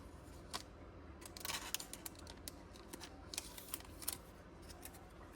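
Pokémon trading cards and their packaging being handled: scattered light clicks and taps, with a brief rustle about a second and a half in.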